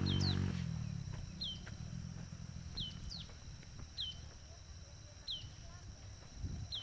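A bird repeats a short falling whistle about every second and a half, over a steady high whine and a low rumble. A loud low drone cuts off about half a second in.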